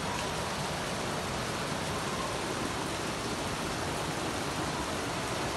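Heavy rain and floodwater running through a flooded street: a steady, even hiss that does not change.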